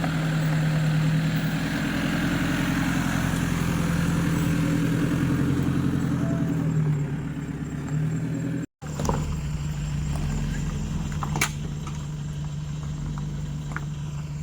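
Vehicle engine running steadily with a low, even hum. The sound breaks off abruptly for a moment about nine seconds in, then the same hum carries on, with a few faint clicks.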